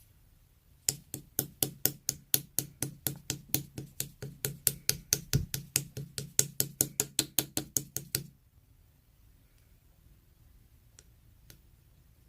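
Slime being pressed or poked in a steady rhythm, making sharp, even clicks about four to five times a second for about seven seconds, over a low hum; the clicking stops about eight seconds in, leaving a few faint ticks.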